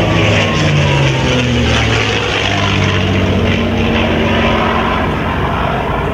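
Single-engine propeller aerobatic airplane flying a close pass, its engine and propeller drone steady and loud, with the engine note sagging slightly in pitch during the first couple of seconds as it goes by.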